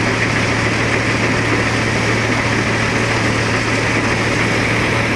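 Paddy thresher running steadily while threshing rice. It makes a loud, even machine noise with a constant low hum underneath.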